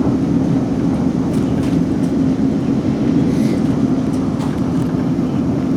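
Interior running noise of a South Western Railway Class 458 electric multiple unit under way: a steady, loud rumble with a constant low hum, and a few faint clicks.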